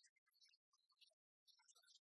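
Near silence: only faint, broken hiss.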